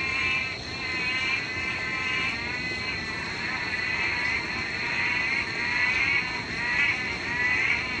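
Dense chorus of frogs calling loudly, many wavering, bleat-like calls overlapping without a break.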